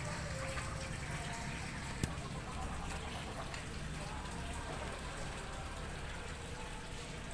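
Steady rain, an even continuous hiss, with one sharp tap about two seconds in.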